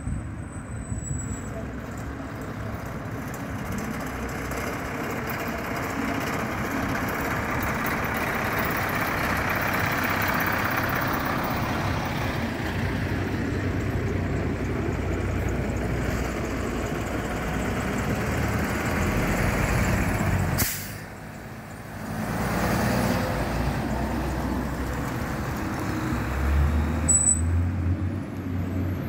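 Fire engines' diesel engines running as they drive slowly up the street past the camera, the noise swelling to its loudest about a third of the way through, with the hiss of air brakes. After a sharp click and brief drop about two-thirds through, a steady low engine note as a truck moves off slowly.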